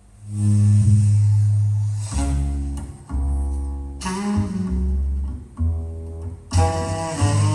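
Instrumental music from a KEF LS50 Meta loudspeaker, starting a moment in after near quiet. Deep held bass notes change every second or two, with string tones above them.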